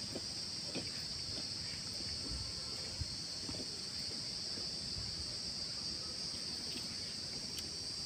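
Insects droning outdoors, a steady high-pitched chorus that does not change, with a few faint short sounds in the first second.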